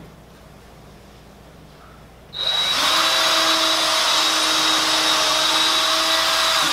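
Power drill running at one steady speed for about four seconds, starting a couple of seconds in and stopping abruptly, as it works into the maple of an Adirondack chair frame.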